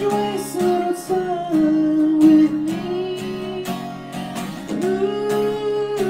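Acoustic guitar strummed in a steady rhythm, with a man singing long held notes over it.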